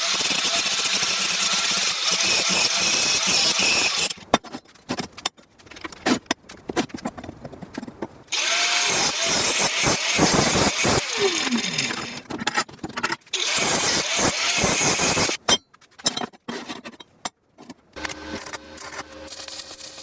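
A power tool runs in three bursts of a few seconds each, with sharp knocks and clatter of handling in the pauses between.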